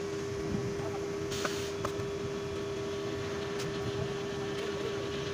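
A steady machine hum at one unchanging pitch, over a low rumble. A shovel scrapes into a pile of dry sand and cement, most clearly once about a second and a half in, with a few faint clicks of the blade.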